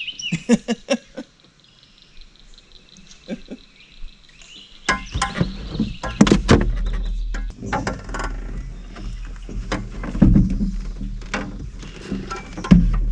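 Knocks and thumps of a person shifting and reaching about in a small aluminum jon boat, over a low rumble that starts about five seconds in. A few sharp clicks come right at the start.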